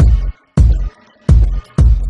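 Electronic music with heavy bass hits: four loud, deep strikes in two seconds, each cut short, with brief quiet gaps between them.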